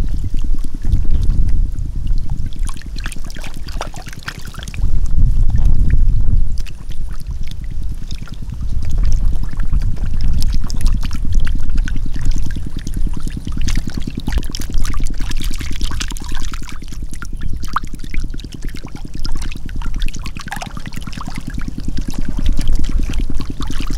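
Water splashing and pouring over a steady low rumble with a fast, even pulse.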